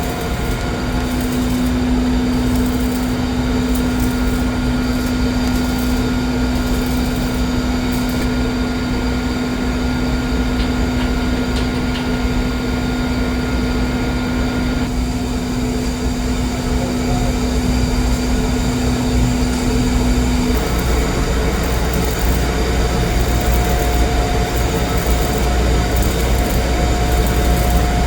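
Welding on boiler piping: loud, steady noise with no breaks, over several constant machine hums, one of which stops about twenty seconds in.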